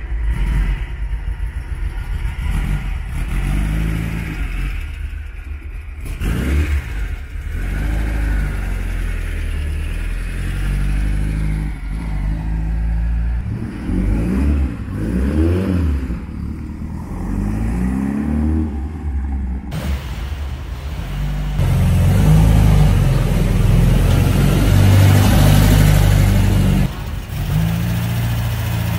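Air-cooled Volkswagen Beetle flat-four engines, a 2332 cc Type 1 and a 2.7 L Type 4, running through Vintage Speed aftermarket exhausts, heard in several short clips. They idle, and in the middle the throttle is blipped a few times so the revs rise and fall.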